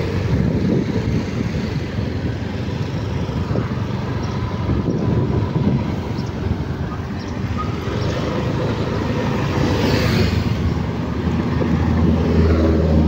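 Vehicle engine and road noise while driving along a street, with wind buffeting the microphone. The noise swells briefly about ten seconds in, and the low engine hum grows stronger near the end.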